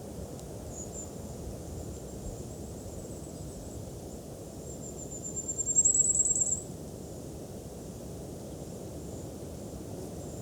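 Steady low wind noise, with a small songbird singing high-pitched trills over it; the loudest, a rapid trill that swells and stops abruptly, comes about halfway through.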